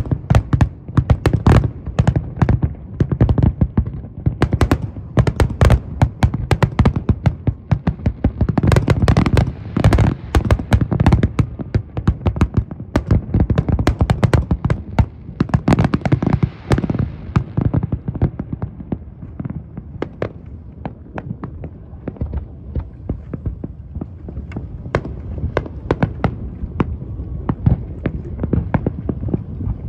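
Large fireworks display: rapid, overlapping aerial shell bursts and crackling over a low rumble, densest through the first half. After about 17 seconds it thins to scattered, weaker bangs and crackle.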